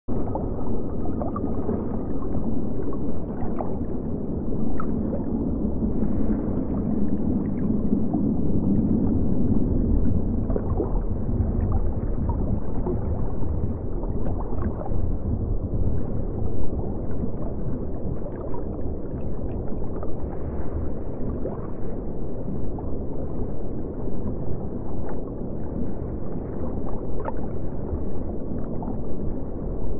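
Underwater ambience: a steady, muffled low rumble of water, with scattered faint clicks throughout.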